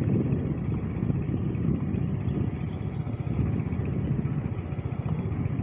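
Motor scooter running at a steady riding speed, a continuous low rumble of engine and wind buffeting the microphone.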